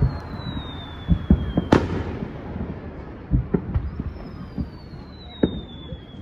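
Aerial fireworks going off at a distance: a series of dull thuds and one sharp, loud bang about two seconds in, which comes just as a falling whistle ends. A second falling whistle starts about four seconds in.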